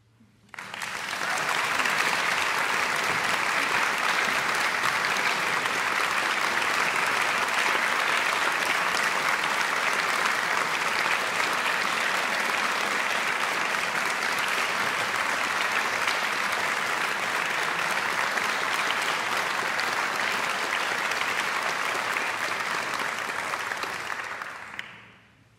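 Audience applause: dense clapping that starts just after the opening, holds steady for over twenty seconds and dies away near the end.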